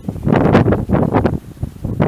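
Wind buffeting the microphone in rapid, irregular gusts.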